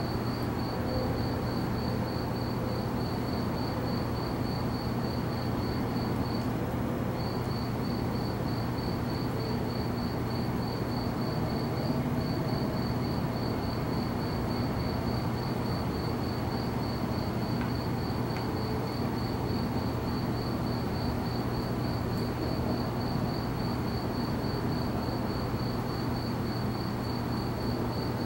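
A cricket chirping steadily at a high pitch, about four chirps a second, with a short pause about six seconds in, over a steady low hum.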